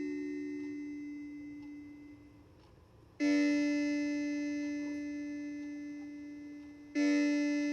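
Daniel Dakoda battery mantel clock's chime: a single low note fades out, then is struck again twice, about four seconds apart, each stroke ringing and dying away slowly. The chime plays lower in pitch than it should, which the owner puts down to a weak battery due for replacement.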